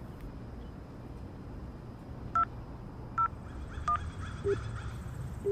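Smartphone keypad dialling tones: three short touch-tone beeps, each a pair of tones, about three-quarters of a second apart as a number is dialled, over a low steady background rumble.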